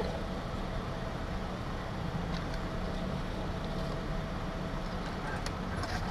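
A steady low mechanical rumble with a faint steady hum above it and a few faint ticks.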